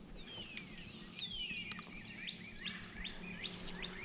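Birds singing, faint: two long whistles falling in pitch in the first two seconds, then a quick string of short rising chirps.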